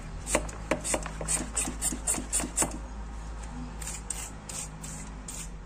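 A hand pump sprayer on a plastic soft-drink bottle, first pumped with quick rubbing strokes, about four a second, to build pressure. From about four seconds in it sprays water in short hissing bursts.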